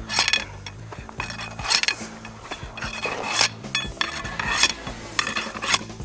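A long metal bar jabbed repeatedly into rocky ground, scraping and grinding with each stroke, roughly one stroke a second, as a hole is worked into the rock. Faint guitar music runs underneath.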